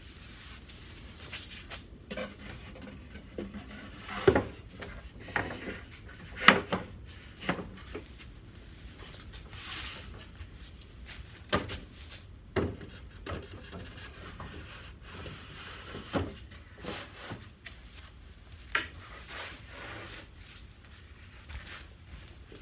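Three-quarter-inch plywood dog house panels being fitted together by hand: irregular wooden knocks and clunks with rubbing and scraping between them, the loudest about four and six and a half seconds in.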